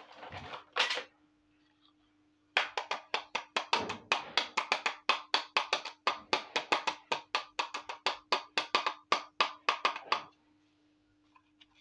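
Miniature plastic toy teapot clicking rapidly against a small clay dish, a fast, even run of sharp clicks at about six a second lasting some eight seconds. A brief scrape and knock come just before it.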